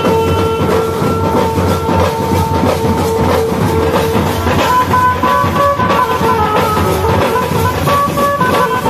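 Tasha party band playing: massed tasha drums beating a fast, dense rhythm under a melody of held notes on an Indian electric banjo.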